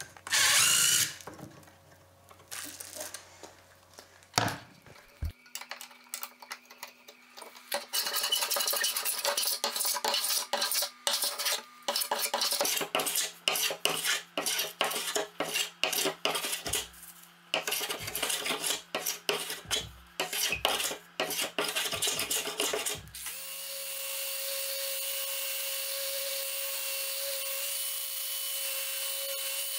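A cordless drill whirs briefly at the start. Then comes a long run of quick, repeated shaving strokes from a long metal hand plane cutting along the edge of bent laminated wood. Near the end a random orbital sander starts up and runs steadily with a held hum.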